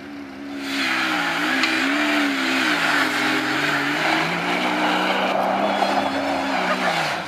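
Lifted Jeep 4x4 pickup's engine revving up and down as its tyres spin through loose dirt. A loud rush of spinning tyres and spraying dirt comes in about a second in, and the sound cuts off suddenly near the end.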